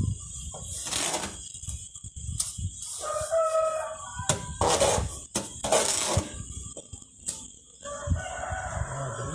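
A rooster crowing twice, about three seconds in and again near the end, the second crow falling away at its close. Between the crows comes the louder scraping of a trowel spreading wet cement mortar in a tile mould.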